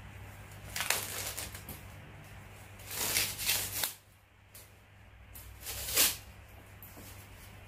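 Clear plastic wrapping rustling and crinkling as a handbag's shoulder strap is pulled out of it, in three bursts: about a second in, around three seconds in, and a short sharp one about six seconds in.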